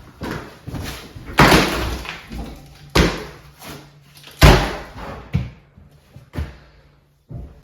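Hand demolition of a cabin interior: three loud sharp bangs about a second and a half apart, the last the loudest, then a few lighter knocks as pieces of wall material are pulled loose and dropped.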